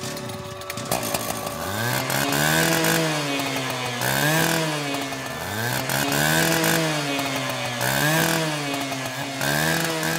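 A small engine revved up and let back down five times, about every two seconds.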